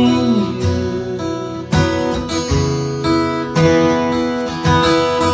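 Acoustic guitar strumming chords, with a new strum or chord change about every second, in the instrumental gap between sung lines.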